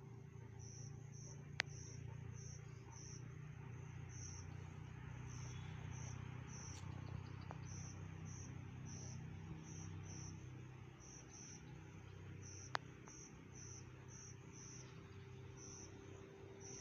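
Crickets chirping in short, high, repeated chirps about twice a second, faint, over a low steady rumble. Two sharp clicks, one near the start and one about three quarters of the way through.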